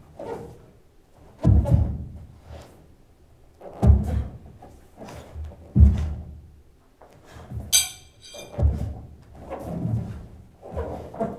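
Bare feet stamping and stepping on a hollow wooden stage floor during a sai kata: a series of heavy thuds with a short echo, about seven in all, spaced one to two seconds apart. A brief metallic ring sounds about eight seconds in.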